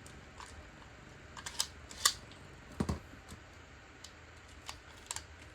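Scattered light clicks and taps of plastic Beyblade tops and launcher being handled, about a dozen irregular knocks with the loudest about two seconds in.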